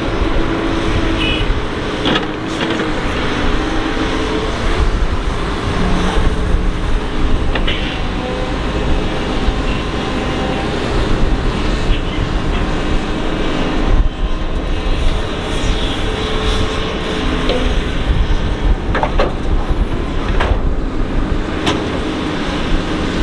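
Doosan DX225LC excavator's diesel engine running under load with hydraulic whine as it digs and swings, its pitch rising and falling with the work. Sharp clanks from the bucket and boom come several times.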